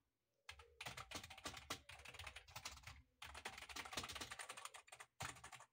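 Fast typing on a Redgear GC100 semi-mechanical gaming keyboard, its tactile keys clacking in quick runs, with a brief pause about three seconds in before the typing resumes.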